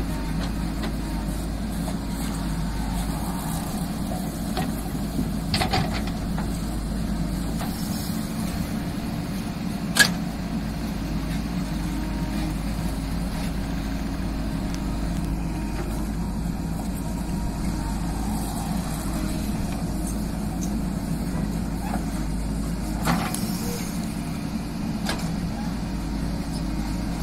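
Diesel engine of a JCB 3DX backhoe loader running steadily while the backhoe digs, with a few short knocks, the sharpest about ten seconds in.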